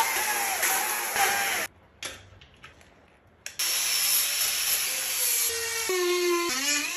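A chainsaw cutting into wood, then after a short break a small handheld rotary power tool grinding the carving, its motor pitch dropping near the end.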